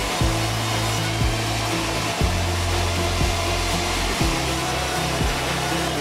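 Sawmill band saw running with a steady whirring drone.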